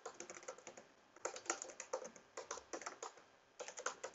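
Typing on a computer keyboard: quick runs of key clicks broken by a couple of short pauses.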